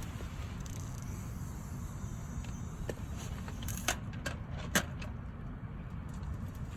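Steady low rumble, with a few short sharp clicks or knocks a little under four seconds in and again near five seconds.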